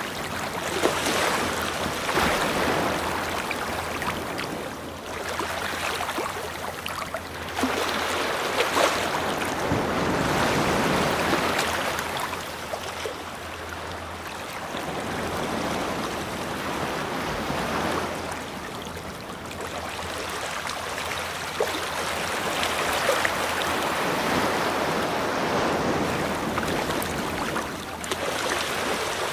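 Ocean waves washing onto a beach in repeated surges, each swell rising and falling away over a few seconds.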